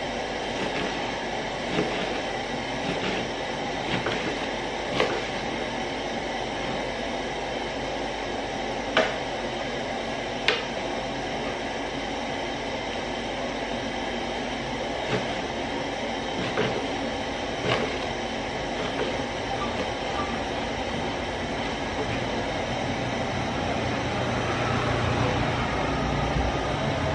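Kitchen knife cutting oha leaves on a plastic tray: scattered sharp taps of the blade striking the tray, about ten of them and irregularly spaced, over a steady background rush.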